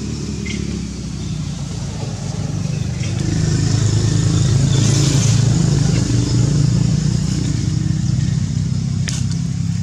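An engine running steadily. It grows louder about three seconds in and eases off slightly near the end.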